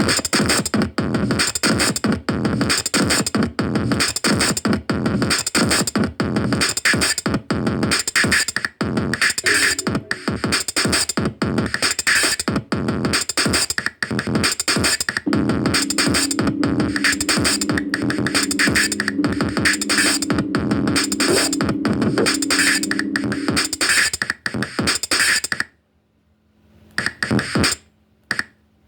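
Electronic music with a fast, steady drum-machine beat and synthesizer, cutting off abruptly near the end and followed by a few short stabs.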